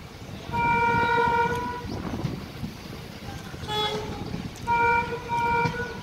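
ALCO diesel locomotive's horn sounding one long blast, then two short blasts in quick succession near the end, over the steady running rumble of the train.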